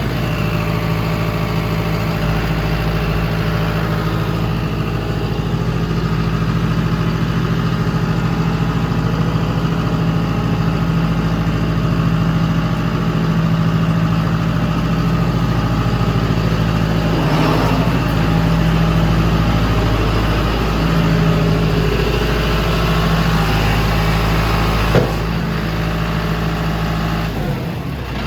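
Tractor engine running steadily, with one sharp knock near the end. Just before the end the engine note drops and gets quieter as it is throttled back.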